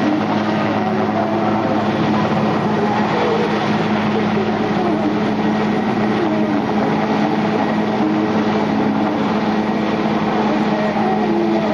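Twin-turbine Aérospatiale SA 330 Puma helicopter hovering, its engines and rotor running steadily with a constant hum.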